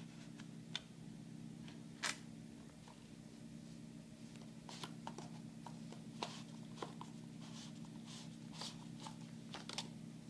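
A small product box being opened and its packaging handled: scattered light clicks and short rustles, the loudest about two seconds in, over a steady low electrical hum.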